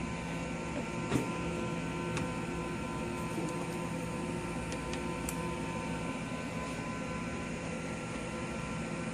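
Steady electrical hum and whirring machine noise with a few faint clicks, the sharpest about a second in.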